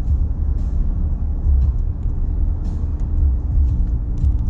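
Car interior noise while driving slowly: a steady low engine and road rumble with a steady hum, and a few faint short clicks.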